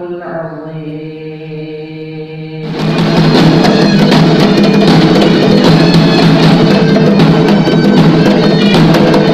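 A man chanting a Quran recitation in long, held melodic notes. About three seconds in it cuts abruptly to loud South Sulawesi traditional dance music driven by steady drumming.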